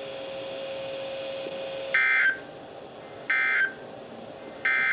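NOAA Weather Radio SAME end-of-message data bursts: three short, harsh digital bleats about 1.3 seconds apart, sent to close the weekly tone alarm test. Heard over the broadcast's background hiss, with a faint steady hum that stops just before the first burst.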